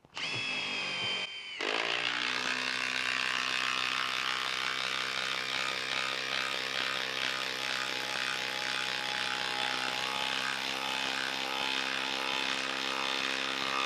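Makita cordless impact driver driving a 6-inch lag screw into a log. It begins with a brief high whine as it spins in place, then about a second and a half in it settles into the steady rapid hammering of its impact mechanism as the lag bites into the wood.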